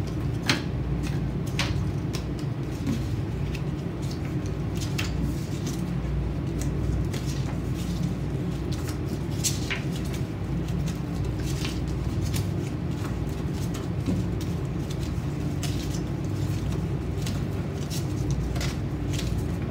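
Paper strips being folded back and forth into a concertina and creased down on a tabletop: scattered soft crinkles and taps at irregular moments over a steady low hum.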